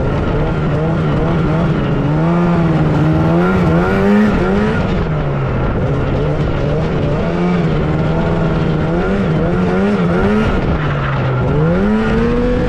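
The two-stroke twin engine of a 1997 Yamaha Phaser II snowmobile under way, its pitch rising and falling again and again as the throttle is opened and eased off, with a dip and a fresh climb near the end.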